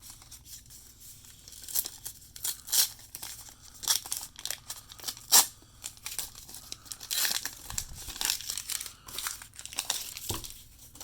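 Foil wrapper of a 1989 Upper Deck baseball card pack being torn open and crinkled by hand, in irregular crackles.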